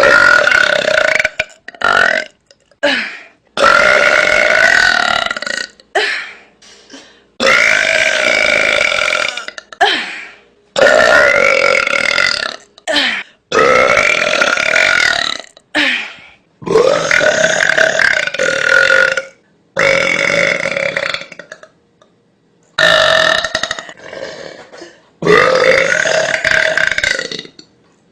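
A woman belching loudly and on purpose: about a dozen long, drawn-out belches, one after another, with short breaks between them.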